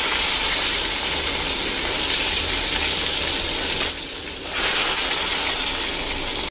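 Long eggplant pieces frying in hot mustard oil in a steel kadai, sizzling steadily as a loud hiss. The sizzle dips briefly about four seconds in.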